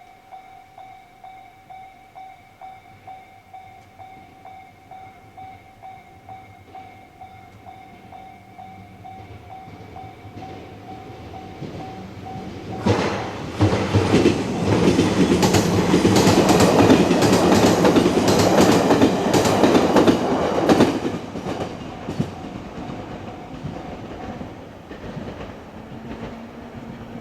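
Japanese level crossing warning bell ringing in a steady repeating pattern. About thirteen seconds in, a train passes over the crossing loudly, its wheels clattering rapidly over the rail joints for about eight seconds before fading away.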